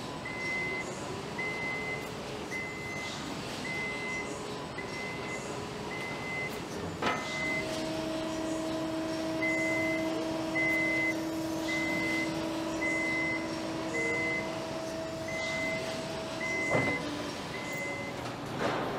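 Forklift warning beeper sounding a high, steady beep about once a second, pausing for a couple of seconds around seven seconds in, over factory machinery noise. A steady two-note hum switches on with a click about seven seconds in and off with another click near the end.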